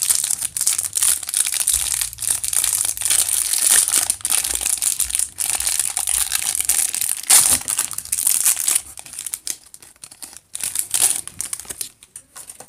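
Thin clear plastic wrapper being crinkled and peeled off a stack of trading cards: continuous crackling of plastic for most of the stretch, breaking into short separate crinkles near the end.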